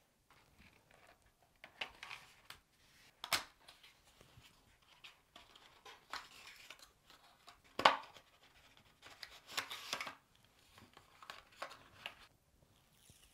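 Hands unboxing a smartphone: the cardboard box and its inner tray and accessory sleeve sliding, tapping and rustling, with a sharp click about a quarter of the way in and a louder knock a little past halfway.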